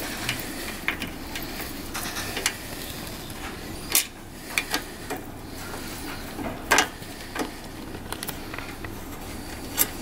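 Light metallic clicks and ticks of a hex key working the bolts of a bicycle's rear disc brake caliper mount, with a few sharper clicks about four and seven seconds in.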